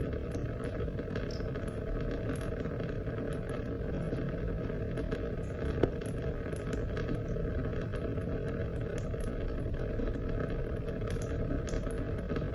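Steady rain falling, a continuous wash of water noise with scattered drop ticks on top and one sharper tick about six seconds in.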